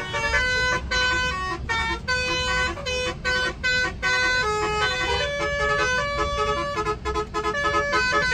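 Indonesian 'telolet' musical air horn on a bus playing a quick tune of short, changing notes with a few brief gaps, over the steady low rumble of the moving bus.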